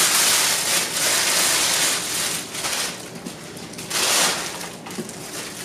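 Thin plastic bag crinkling and rustling as a plastic steaming tray is pulled out of it, loudest for the first two seconds, with another short burst about four seconds in.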